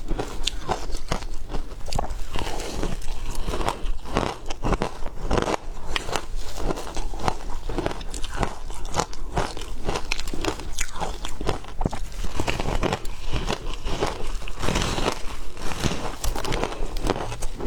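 A person biting and chewing frozen shaved ice: a dense, irregular run of crisp crunches.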